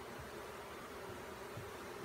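Honeybee swarm buzzing, a faint steady hum.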